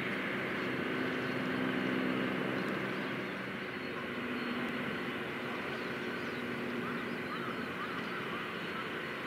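Steady low mechanical hum with a constant drone, with short bird calls over it in the second half.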